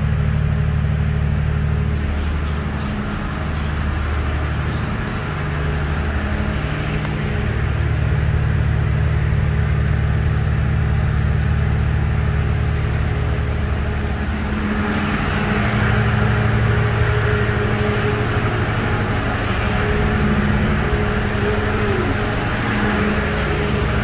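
Diesel engine of the Northern Explorer train idling: a steady, deep, loud hum.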